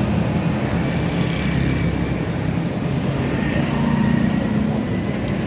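Street traffic: a steady low rumble of vehicle engines running close by.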